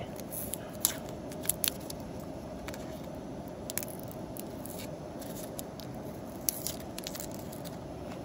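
Garlic cloves being peeled by hand on a wooden cutting board: scattered papery crinkles and small sharp clicks of the dry skins, over a steady background hiss.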